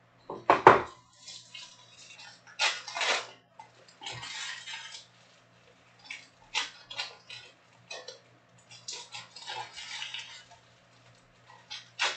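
Trading cards and foil packs being handled on a tabletop: irregular clacks, taps and rustles, the loudest a quick cluster of clacks about half a second in.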